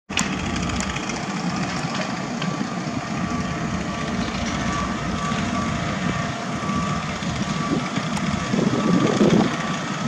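Construction-site din of heavy vehicles and machinery running, with a reversing alarm beeping over and over. There is a louder rumble of machinery near the end.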